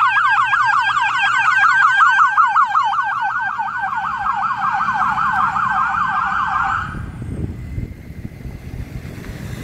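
Fire department vehicle's electronic siren on a fast yelp, rising and falling about four to five times a second. It cuts off about seven seconds in, leaving the engine and tyre noise of passing traffic.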